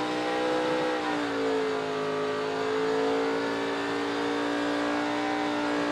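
NASCAR Toyota Tundra race truck's V8 engine held at high revs during a victory burnout, its rear tyres spinning and smoking against the pavement. The engine note sags slightly a little after a second in, then holds steady.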